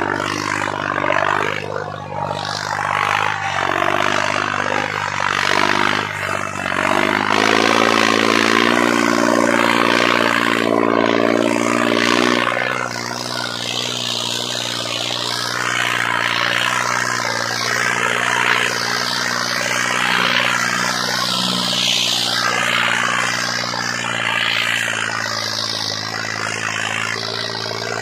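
John Deere 5210 diesel tractor engine labouring under heavy load as it drags a disc harrow through ploughed soil. Its note rises and gets stronger about a quarter of the way in, then settles to a steady pull, with a broad rushing noise over it.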